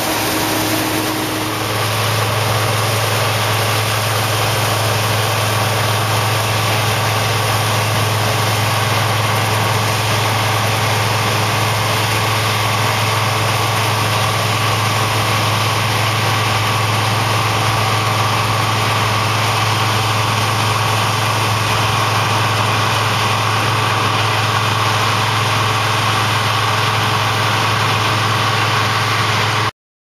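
Combine harvester running steadily under harvest load: a deep, even engine drone over a wash of threshing and chaff-spreading noise. It cuts off suddenly at the very end.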